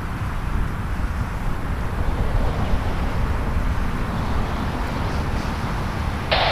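Distant jet aircraft engine noise, a steady rumble and hiss. Just at the end, a radio transmission cuts in abruptly.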